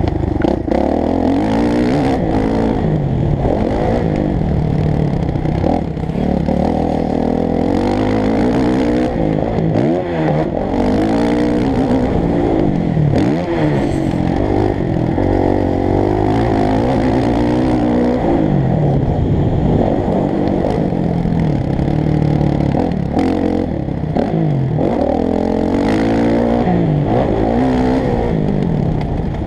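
Motocross bike engine revving hard, its pitch climbing and dropping again and again as the rider accelerates, shifts and backs off through the track's sections, heard from on the bike.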